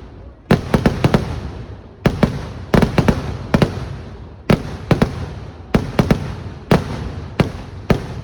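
Fireworks display (vedikettu): a rapid run of loud, sharp bangs, often two to four in quick succession, about every second, each trailed by a rumbling echo that fades before the next.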